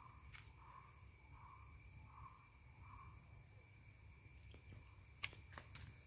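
Near silence with faint insects: a very high, thin, steady trill that breaks off and restarts, over a lower steady whine. A soft call repeats a little faster than once a second for the first three seconds, and a few sharp clicks come about five seconds in, the loudest sounds here.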